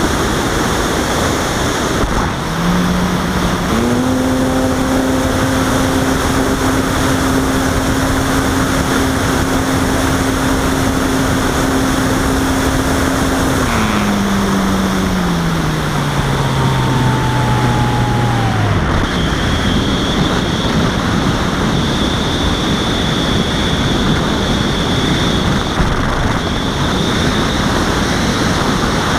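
Steady rush of air over the onboard microphone of a Robbe Arcus Sport RC glider in flight. A low steady tone joins about two seconds in, steps up in pitch, holds, then drops in several steps and stops about two-thirds of the way through.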